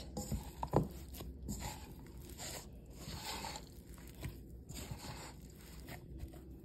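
A hand squeezing and working a shaggy flour-and-yogurt bread dough in a stainless steel bowl, making repeated soft crunching and scraping strokes as the last dry flour is worked in.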